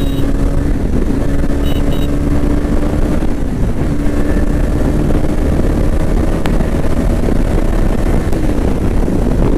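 KTM 250 Duke's single-cylinder engine running at a steady cruising speed, with wind rumbling on the microphone. The engine note dips briefly about eight seconds in.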